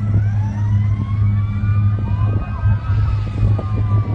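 Several emergency-vehicle sirens wailing over each other, their pitches sliding up and down, above a loud, steady low drone. A few brief knocks come in the second half.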